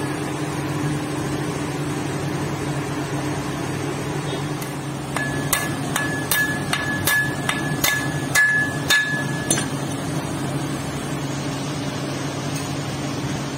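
Light hammer taps on metal, about a dozen strikes at two or three a second, each leaving a high ring, as the new lathe-turned nozzle is tapped into the car intake manifold; they start about five seconds in and stop near ten seconds. A steady low hum runs underneath.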